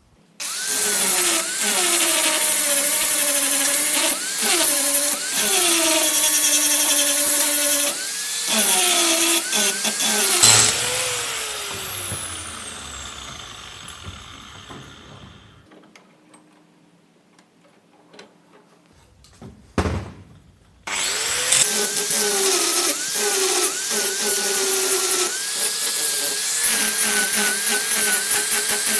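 Angle grinder profile-grinding a steel knife blade: the motor's pitch repeatedly sags and recovers as the disc is pressed into the steel. About a third of the way through it is switched off and spins down with a falling whine, followed by a few quiet seconds with a single click, then it starts again and grinds on.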